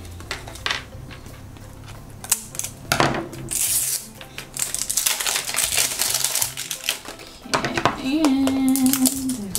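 Plastic toy pod being unwrapped and handled: scissors snip, thin plastic wrap crinkles, and hard plastic clicks and taps. Near the end a woman's voice holds a short hum.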